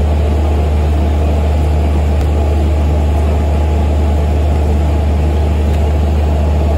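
Steady low drone of a ship's machinery running on deck, even and unchanging throughout.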